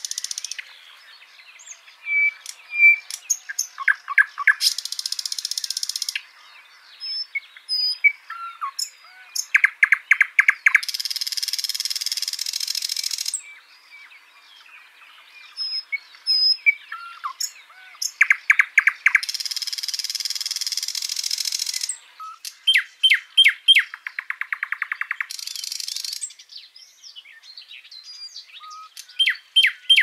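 Several birds chirping and singing, with rapid trills that recur every few seconds. Between them come buzzy, high-pitched stretches lasting two to three seconds, which the material does not identify.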